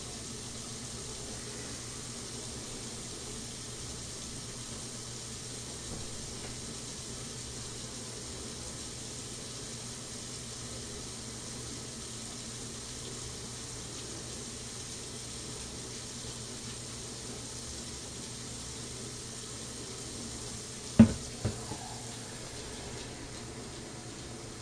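Water running steadily as a gallon of water is filled during a fuel-tank capacity test. About 21 seconds in comes a sharp knock, then a lighter one.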